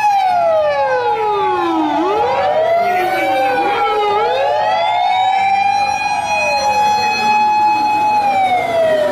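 Sirens of Japanese fire engines pulling out on a call, two or more wailing at once out of step. Each slides down in pitch and back up, with a long high held note through the middle.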